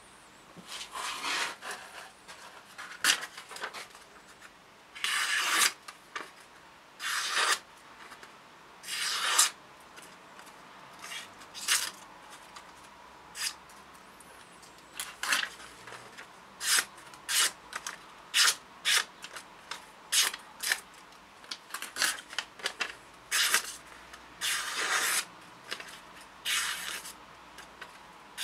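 A handmade hunting knife slicing through sheets of paper, cut after cut, testing the sharpness of its edge. About two dozen separate cuts, the few longer, drawn-out ones near the start and near the end, short quick ones in between.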